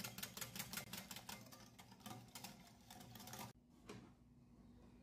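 Wire balloon whisk beating an egg mixture in a ceramic bowl, its wires clicking rapidly against the bowl several times a second. The clicking stops abruptly about three and a half seconds in.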